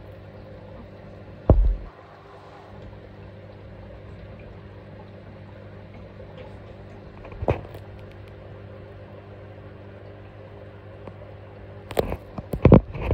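Steady low electrical hum with a few sharp knocks: one about a second and a half in, one about seven and a half seconds in, and a quick cluster near the end.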